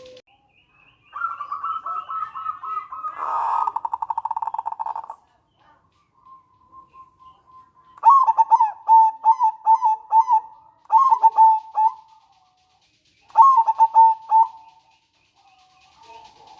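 Zebra dove (perkutut) calling: a drawn-out call that breaks into a fast rattle about three seconds in, then bursts of short, rhythmic cooing notes around the middle and again near the end.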